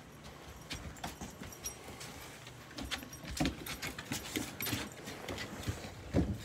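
Great Pyrenees adult and puppy paws and claws tapping and scrabbling on wooden deck boards as they play: irregular clicks with a few heavier thumps, busiest in the middle and loudest near the end.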